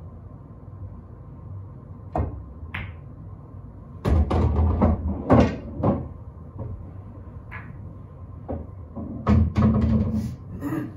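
Pool balls clicking and knocking on a pool table: two sharp clicks about two seconds in, the cue tip striking the cue ball and a ball contact, then louder clusters of knocks and thuds from about four to six seconds and again about nine to ten seconds in as balls are handled and set back on the table.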